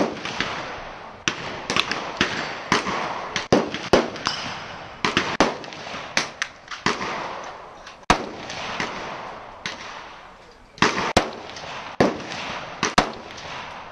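Gunfire at a shooting range: many shots at irregular spacing, some in quick pairs, each followed by a short echo.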